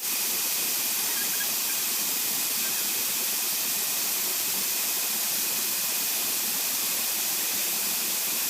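Steady hiss of rushing, falling water from the waterfall, even and unbroken.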